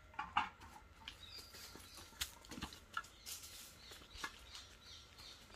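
Scattered light knocks and rustles of custard apples being picked up off dry, leaf-strewn ground, with a few short animal calls, one about a third of a second in and another around three seconds in.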